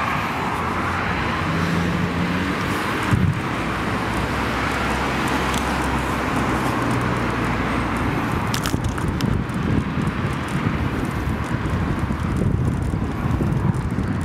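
Road traffic noise from cars passing on the street, heard while riding a bicycle, with wind rushing over the handheld camera's microphone. A knock comes about three seconds in.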